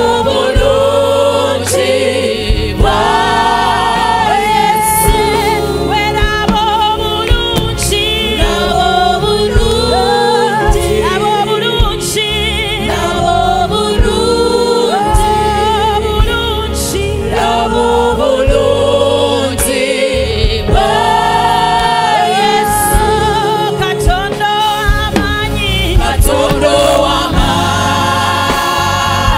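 Live gospel praise-and-worship music: women singing into microphones over instrumental backing with a steady bass line.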